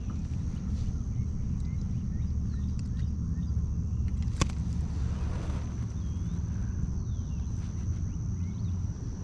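Wind buffeting the microphone, a steady low rumble, with one sharp click about four and a half seconds in.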